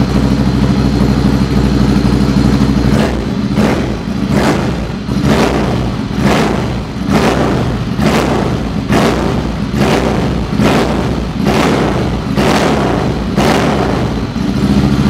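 Ducati Scrambler 800's air-cooled L-twin running through an SC Project aftermarket exhaust. It idles steadily for about three seconds, then is blipped about a dozen times, roughly one rev a second, and settles back to idle near the end.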